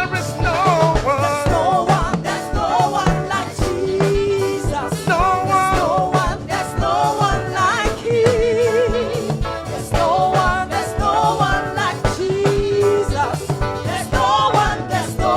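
Live gospel choir singing with vibrato over a band with a steady drum beat.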